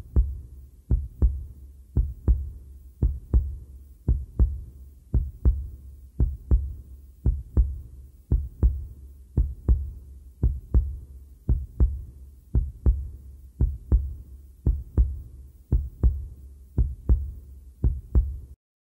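Heartbeat sound effect: a steady double thump, lub-dub, just under once a second, cutting off suddenly near the end.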